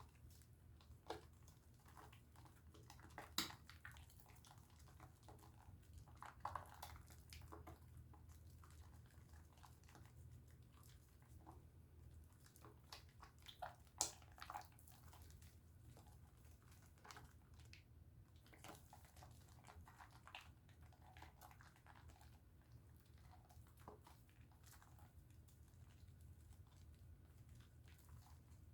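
Faint soft crackling and squishing of a pink Dove soap bar being lathered, with scattered small clicks and two sharper ones, over a low steady hum.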